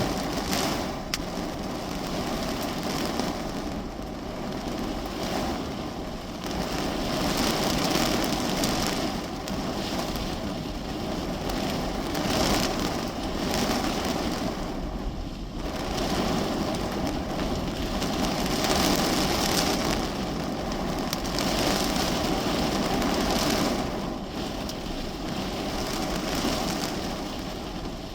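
Heavy rain pelting the roof and windows of a parked car, heard from inside the cabin: a dense crackling patter that swells and eases in waves every few seconds.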